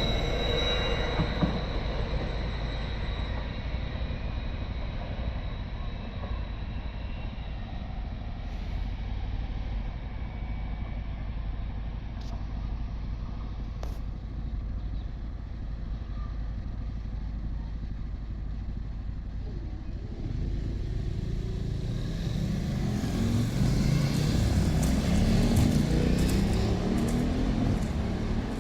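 Diesel engine of a Class 43 HST power car running steadily. About twenty seconds in it throttles up, the engine note growing louder and rising in pitch as the train pulls away.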